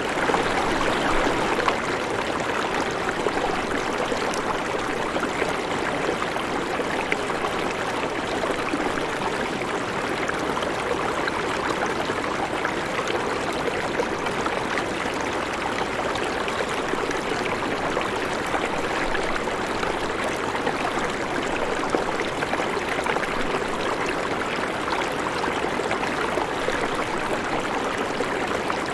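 River water flowing steadily, a continuous even rush of moving water.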